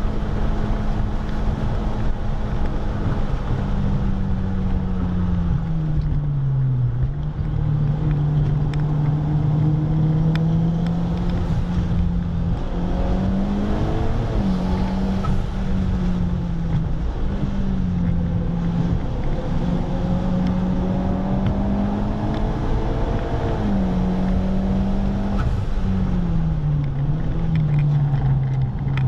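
Car engine heard from inside the cabin on a track lap, its pitch climbing under acceleration and falling off under braking, with several quick drops as the gears change. Road and wind noise run underneath.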